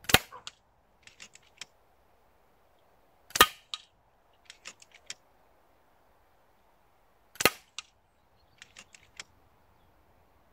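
FX Impact MK2 pre-charged pneumatic air rifle firing .177 JSB Heavy pellets: three sharp shots about four seconds apart. Each shot is followed about a second later by a few quick clicks of the side-lever action being worked to load the next pellet.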